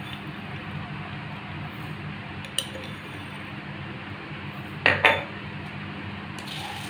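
Kitchen utensils clinking: a light click, then two sharp clinks close together about five seconds in, over a steady low hum.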